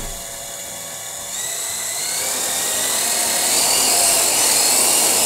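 Syma X6 quadcopter's four small electric motors and propellers whining, the pitch and loudness climbing steadily from about a second in as the throttle is pushed up.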